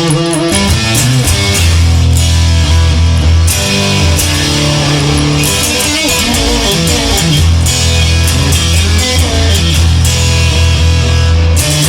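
Instrumental rock music: distorted electric guitar over a steady bass line and drums.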